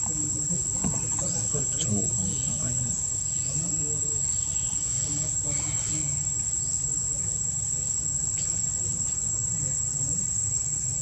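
Steady high-pitched drone of insects.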